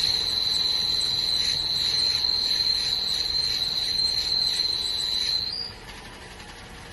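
2018 Mazda 3 clutch giving a steady high-pitched squeal while engaging, which cuts off about five and a half seconds in. The owner thinks the clutch needs replacing.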